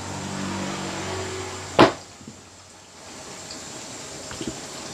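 A single sharp knock about two seconds in, over faint background noise with a low hum.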